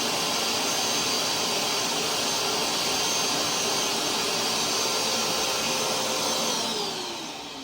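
Hoover SmartWash carpet cleaner's motor running steadily with a whine, then switched off about six and a half seconds in, its pitch falling as it winds down.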